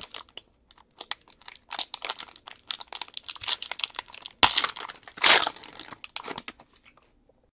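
Foil trading-card pack wrapper crinkling and tearing as it is ripped open by hand, with the loudest rips about four and a half and five seconds in.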